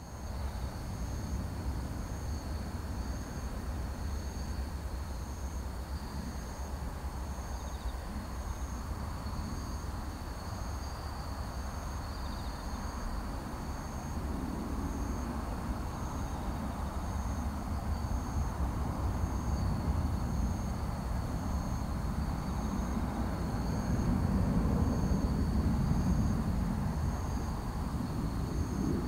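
Boeing 747-400 freighter on final approach, its four jet engines a low steady rumble that grows louder in the second half as it comes closer. Insects chirp throughout in a high pulsing rhythm about twice a second.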